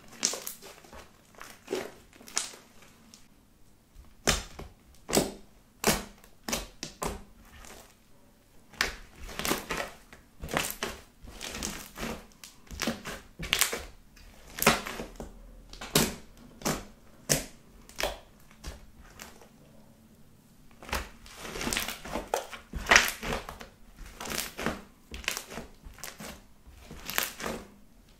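Thick pink body-lotion slime being squeezed, folded and pressed by hand. It gives irregular, sharp crackling clicks, roughly one to three a second, with short quiet gaps between handfuls.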